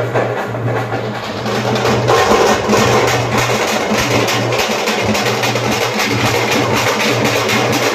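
Loud, fast temple-festival drumming over a steady low drone, with the beats coming thick and even throughout.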